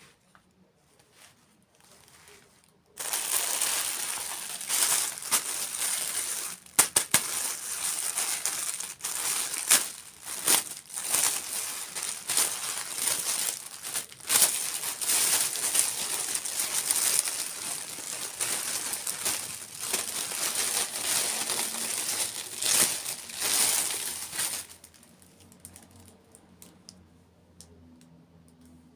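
Plastic packaging crinkling loudly and continuously with sharp crackles, starting about three seconds in and stopping a few seconds before the end.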